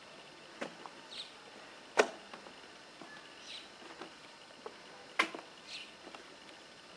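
A few scattered sharp knocks, the loudest about two and five seconds in, with faint short high chirps between them over a quiet background.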